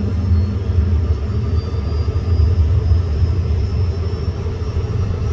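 Cessna CJ3's left Williams FJ44-3A turbofan spooling up during engine start, just after light-off: a steady low rumble with a faint high whine slowly rising in pitch.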